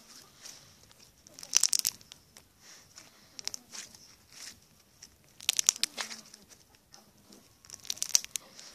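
Slime being squeezed and pressed right against the microphone, crackling and popping in three bursts of quick crackles, about one and a half, five and a half and eight seconds in, with fainter clicks between.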